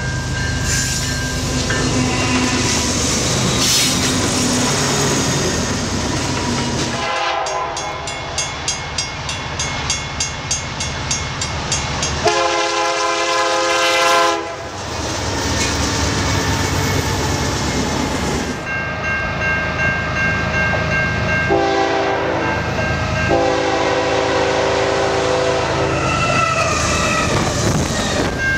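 Diesel freight locomotives sounding their air horns at level crossings: several long chord blasts over the steady rumble of the engines and rolling train. Between the horn blasts there is a regular ringing pulse of about two strokes a second, like a crossing bell.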